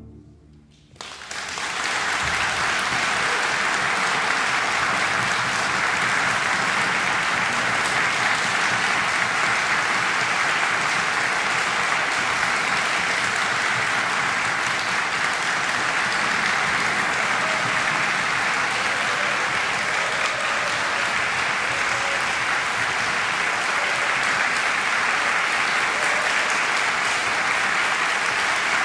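An audience applauding steadily, breaking out about a second in after a brief hush as the string orchestra's final notes die away.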